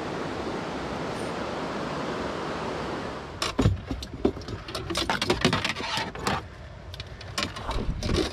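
Steady rush of a stream running high for about three seconds, then a string of irregular knocks, clicks and rustles as gear is handled in a car's cargo area.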